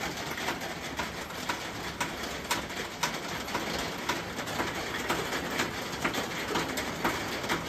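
Pigeons in a wire-and-wood loft cooing, with irregular sharp clicks and taps scattered throughout.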